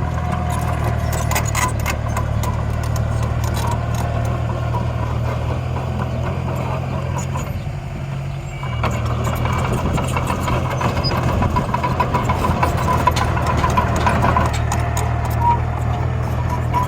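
Heavy machinery engine running steadily, with light rattles; it drops briefly about eight seconds in, then picks up again.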